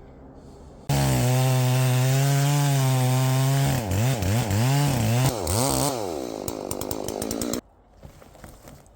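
Chainsaw that starts abruptly and runs at high revs, then the engine speed wavers up and down as it cuts into a downed cherry log. It stops abruptly near the end.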